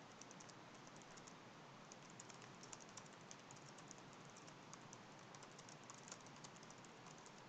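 Faint typing on a computer keyboard: a quick, irregular run of light key clicks.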